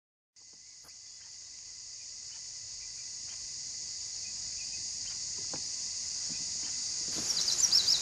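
Steady high-pitched insect chorus, fading in and growing louder, with a few faint clicks and a quick run of bird chirps near the end.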